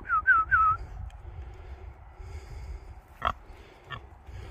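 A person whistles three quick falling notes to call pigs. A little later a pig grunts briefly twice.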